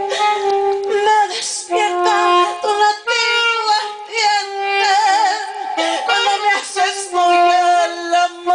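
A woman singing live into a handheld microphone, holding long notes, with a wide vibrato on one note about five seconds in.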